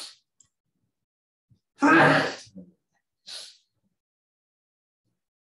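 A man sneezes once, loudly, about two seconds in, with a short breath drawn just before and a breathy hiss about a second after. It is the sneeze of someone who has a cold.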